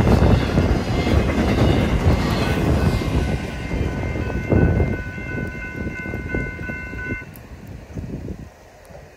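Rumble of the tail end of a fast intermodal freight train passing and fading away over the first few seconds. The grade crossing's General Signal (GS) bells then ring steadily until they cut off about seven seconds in, as the train clears the crossing.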